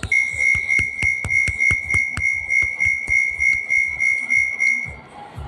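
Train door-closing warning beeper sounding a rapid run of high electronic beeps, about three a second, stopping after about five seconds.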